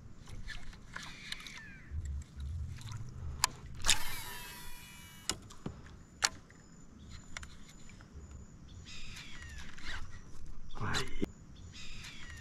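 Wild birds chirping and calling, with a few sharp clicks from fishing tackle. About four seconds in comes a loud start and a whirr of about a second that drops in pitch, like a fishing reel's spool spinning out on a cast.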